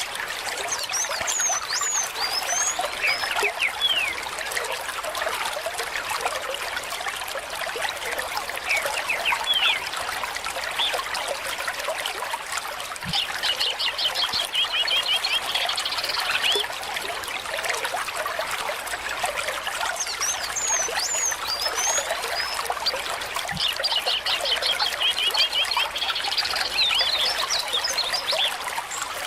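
Water trickling steadily, with birds chirping over it. Twice a bird gives a rapid trill of repeated notes lasting a few seconds: about halfway through and again near the end.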